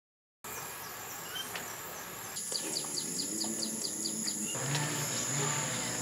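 Countryside nature sound that starts suddenly about half a second in: a steady high insect drone, with a bird giving a quick run of short chirps, about five a second, for a couple of seconds. From the middle on, a low call repeats about twice a second underneath.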